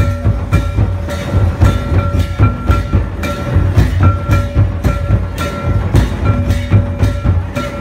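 Loud dance music for a line dance: a steady, driving drum beat with sharp regular strokes, and short held notes of a melody that keep recurring over it.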